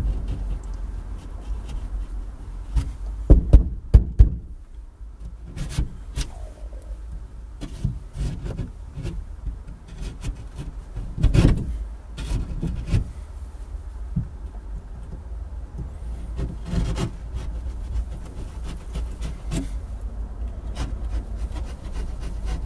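Stanley knife blade scraping and cutting through plasterboard in short, irregular strokes, with knocks and cloth rubbing close to the microphone; the loudest knocks come a few seconds in and again about halfway through.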